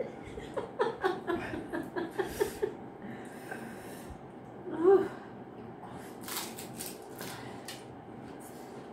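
People reacting while eating very spicy pani puri: a person's voice in quick short bursts for the first few seconds, a louder vocal cry about five seconds in, then a run of sharp hissing breaths drawn in through the mouth against the chili heat.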